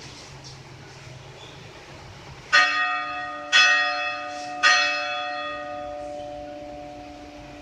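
A church bell struck three times, about a second apart, each stroke ringing on with a long hum that dies away slowly.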